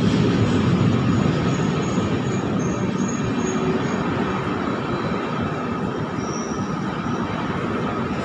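Indian Railways LHB passenger coaches of an arriving express rolling past alongside the platform: a steady rumble of wheels on rail with a few faint high wheel squeals, easing off slightly as the train slows.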